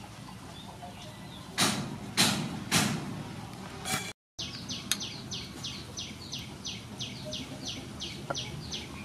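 A cleaver chopping sea snail meat on a wooden chopping board: three heavy chops about half a second apart, then a lighter one. After a short break, a bird repeats a short, high, falling chirp about three times a second.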